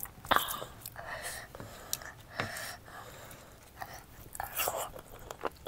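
Close-miked eating: soft wet chewing and mouth sounds, broken by a few short sharp clicks.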